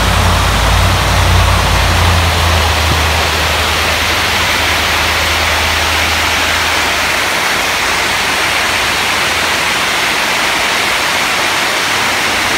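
Water pouring over a concrete dam spillway and churning below it, a steady rushing roar of white water. A deep rumble underneath fades out about halfway through.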